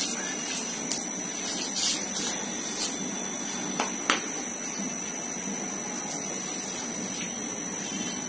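Water poured from a mug onto potted plants, splashing in short bursts, over a steady rushing background hiss. Two sharp knocks about four seconds in.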